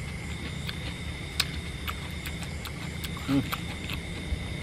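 Scattered sharp clicks and crackles of grilled prawns and lettuce being handled and the prawn shell broken apart by hand, over a steady high whine. A brief hummed vocal sound about three seconds in.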